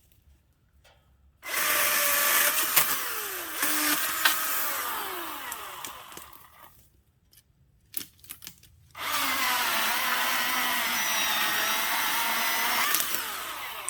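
Milwaukee M18 16-inch battery chainsaw running in two bursts, cutting softwood. The first burst starts about a second and a half in and winds down with a falling pitch. The second starts about nine seconds in and runs steadily for a few seconds.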